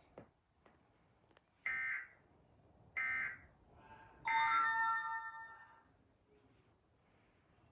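Emergency Alert System end-of-message data bursts: three short buzzy electronic warbles about a second and a quarter apart, the last one longer, with several steady ringing tones.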